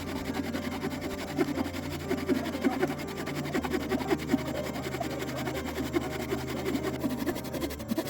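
Soft background music with low held notes that change about every four seconds, over a busy stream of short taps and knocks.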